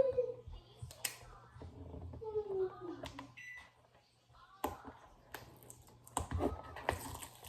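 Scattered clicks and knocks of plastic tripod parts and packaging being handled, growing busier near the end.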